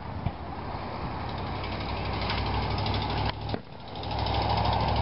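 A steady low engine hum under a rushing outdoor noise, louder from about four seconds in, with a short sharp pop near the start.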